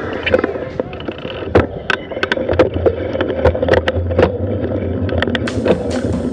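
Mountain bike being ridden over a rough dirt trail: steady tyre rumble with irregular clicks and knocks as the bike rattles over the bumps.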